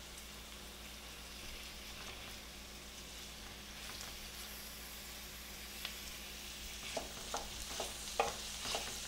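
Ground beef and chopped vegetables sizzling quietly in olive oil in a stainless steel sauté pan. In the last two seconds a wooden spoon knocks and scrapes against the pan several times as the meat is stirred in.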